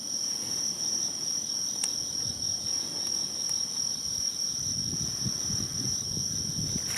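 Insects, crickets by the tags, trilling in one unbroken high steady note, with a little low rustling in the second half.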